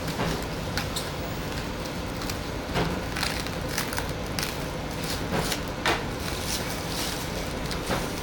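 Clear plastic stretch wrap crinkling and rustling in short crackles as it is cut and peeled off an acrylic plate, over a steady background hiss.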